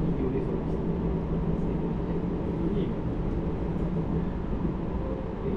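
Inside a JR Hokkaido 733-series electric train running at speed: a steady rumble of wheels on the rails, with a faint constant hum from the running gear.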